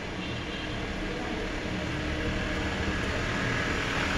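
Steady rumble of road traffic that slowly grows louder.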